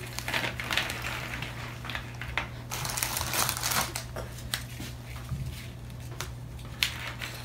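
Crisp biscuits snapping and crumbling as they are broken into pieces by hand, an irregular run of small sharp cracks and crumbly crackling.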